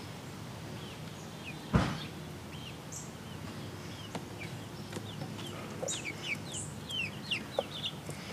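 Young chickens peeping: short, high chirps that slide downward, coming more often in the last few seconds. One dull bump about two seconds in.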